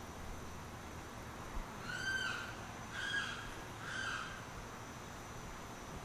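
Limpkin calling: three loud calls about a second apart, starting about two seconds in, each dropping slightly in pitch at its end.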